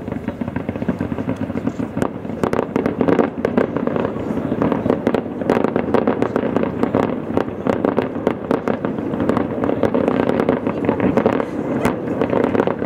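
Fireworks display: a continuous run of crackling and popping from fountains and aerial shells, with many sharp bangs, growing louder about two seconds in.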